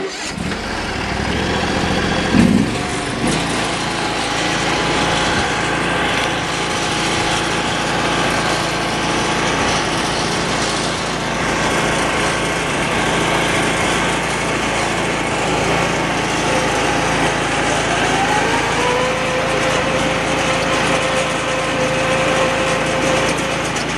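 Simplicity Conquest lawn tractor's 16-horsepower engine starts abruptly, then runs steadily at full throttle as the tractor drives at its top speed. About two thirds of the way through, a whine rises in pitch and then holds steady.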